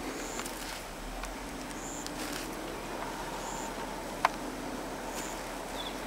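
Footsteps swishing slowly through grass and low shrubs on damp ground. A short, high chirp repeats every second or two, and there is one sharp click about four seconds in.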